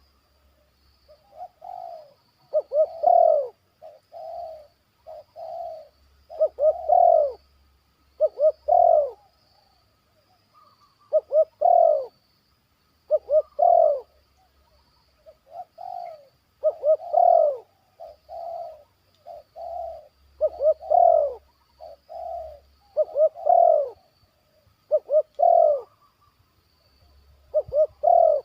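Spotted doves (tekukur) cooing over and over, a phrase every second or two, some louder and some fainter.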